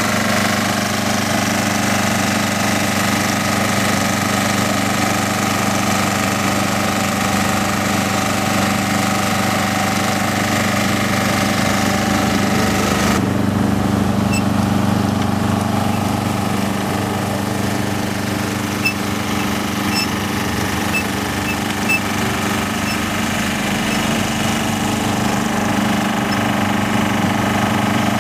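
Engine of road-marking machinery running steadily at an unchanging speed. The hiss above it drops away suddenly about thirteen seconds in, and a few light ticks come in the second half.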